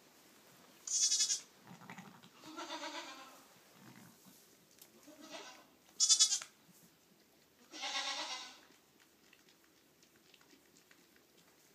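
Southdown Babydoll ewe and her newborn lamb bleating, five calls in all. The two loudest, about one and six seconds in, are short, high and quavering; the others are lower and softer.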